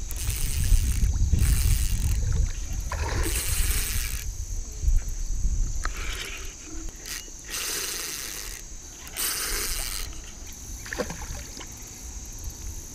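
Spinning reel cranked in short spurts while a hooked carp is played in: several spells of reel and line noise, about half a second to a second each, over a steady high buzz of insects. A low rumble runs under the first few seconds.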